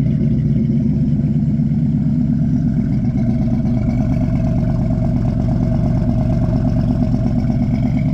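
LS V8 engine in a 1985 Buick Regal idling steadily, with a deep, even exhaust pulse.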